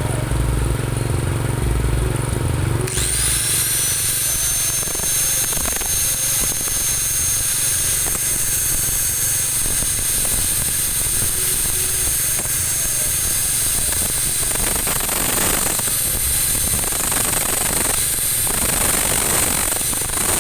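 Honda Supra motorcycle engine running, then an angle grinder spins up about three seconds in with a high, steady whine. The grinder cuts gaps between the weld-built teeth of the front sprocket shaft while the running engine turns the shaft; grinding strokes repeat near the end.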